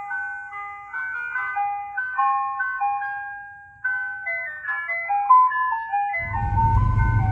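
Aftermarket ice cream truck horn system playing a chiming electronic jingle through its siren speakers, a melody of short notes stepping up and down. Near the end a low vehicle rumble comes in under the tune.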